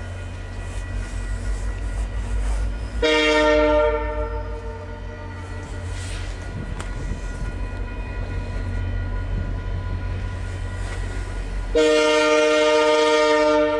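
VIA Rail F40 diesel locomotive sounding its multi-note air horn twice, a short blast about three seconds in and a longer, louder blast near the end, over the steady low rumble of the approaching train.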